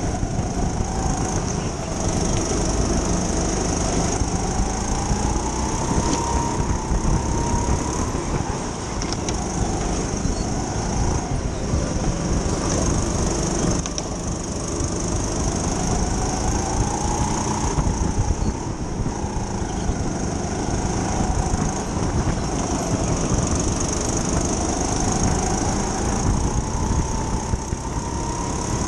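Racing kart's motor running flat out around an indoor track, its whine climbing and falling repeatedly as the kart speeds up and slows, over a steady rumble from the chassis and tyres.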